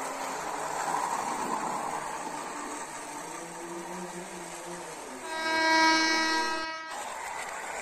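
Toy commuter trains running over plastic track with a steady rattling run. About five seconds in, a train horn sounds for a second and a half, the loudest thing here, and cuts off abruptly.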